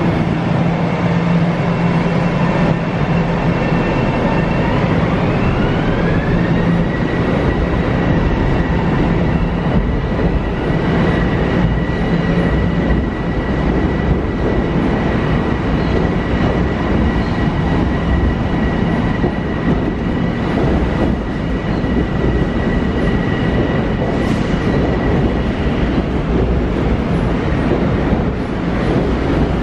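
Bombardier M7 electric multiple-unit train moving past close by. Its traction motors give a whine that rises about five seconds in and then holds steady over the noise of the wheels on the rails, fading out near the end.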